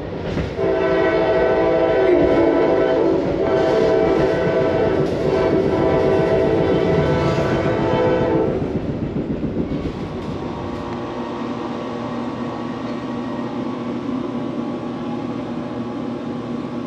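A train horn sounds a long multi-note chord for about eight seconds over the rumble of a moving train, then stops. A steady low hum follows.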